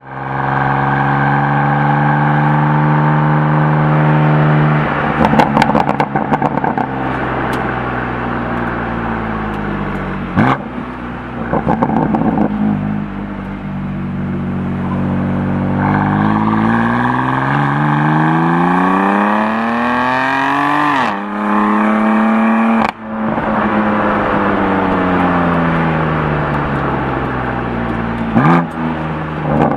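BMW M4 Competition's twin-turbo inline-six exhaust, driven hard. Its pitch climbs under acceleration with sudden breaks at each upshift, then falls away as the car slows. Bursts of crackling come on lift-off.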